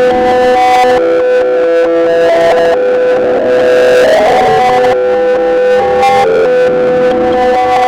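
Mock emergency alert alarm playing loud, distorted electronic tones: one steady held tone with a melody of other held tones shifting in pitch above and below it.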